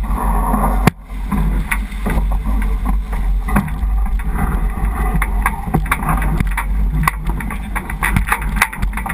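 Wind buffeting the microphone of a boom-mounted action camera on a J80 sailboat, over water rushing past the hull. Many small knocks and clicks from gear and crew moving on deck, with a sharp knock about a second in.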